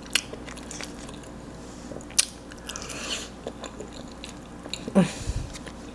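Close-miked eating sounds of a person chewing a mouthful of mac and cheese: soft, wet chewing with a few sharp mouth clicks, one a moment in, one about two seconds in and one near five seconds.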